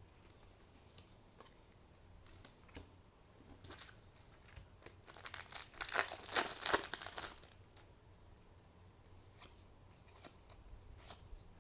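Trading-card booster pack wrapper being torn open and crinkled, with a dense burst of crackling about five to seven seconds in and light scattered crinkles and clicks around it.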